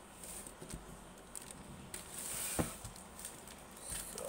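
Small package being worked open by hand: soft rustling with a few light knocks, a louder rustle about two seconds in that ends in a sharp tap.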